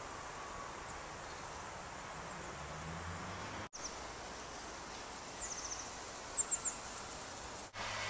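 Outdoor ambience recorded on a camcorder microphone: a steady hiss of open air with a faint low hum, and small birds chirping. A quick run of four chirps comes about halfway through, then three sharper chirps a moment later. The sound drops out for an instant twice, at edits.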